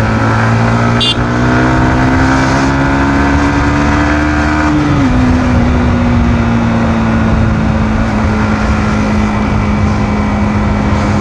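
Yamaha MT-15's 155 cc single-cylinder engine, on its stock exhaust, pulling under way. Its note climbs slowly for about five seconds, drops sharply, then holds steady.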